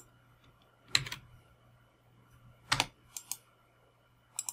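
Scattered clicks from a computer keyboard and mouse: a sharp click about a second in, another near three seconds followed by a quick double, and a double click near the end.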